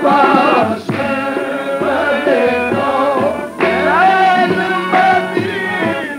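Qawwali music: a singer holding and bending long melismatic notes over sustained harmonium-like tones and tabla.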